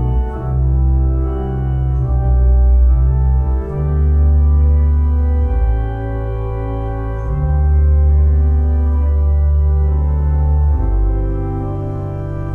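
Organ playing slow, sustained chords over a deep pedal bass, the chord changing every second or two.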